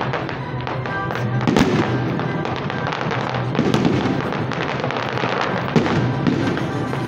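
Fireworks display: aerial shells bursting and crackling in quick succession, a dense run of sharp bangs and pops, with music playing underneath.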